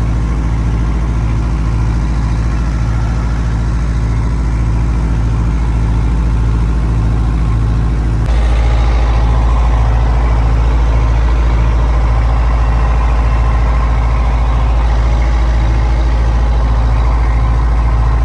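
A fishing boat's engine running steadily with a low, regular throb, getting abruptly louder about eight seconds in.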